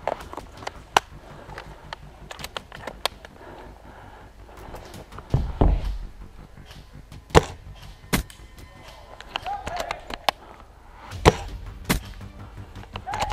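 Scattered sharp clicks and knocks of an airsoft sniper rifle and kit being handled while the player moves behind cover, with a heavier bump about five and a half seconds in. Faint distant voices come in around ten seconds and again near the end.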